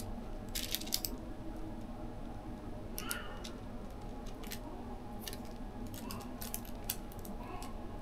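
Tattoo stencil transfer paper crinkling in short, sharp crackles as gloved hands press and smooth it onto the skin of the upper arm, over a steady low hum.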